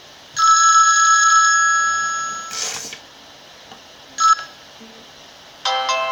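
Alcatel Big Easy (A382g) mobile phone playing ringtones through its speaker. A bell-like tone sounds about half a second in, fades over two seconds and ends with a short hiss. A brief blip follows a little after four seconds, and a new ringtone melody of quick notes starts near the end.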